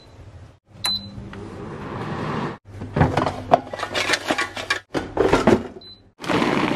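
Digital air fryer's touch-panel beep about a second in, then clattering and rattling of fries in the air fryer basket. Another short beep comes near six seconds, and a steady rushing noise starts just before the end.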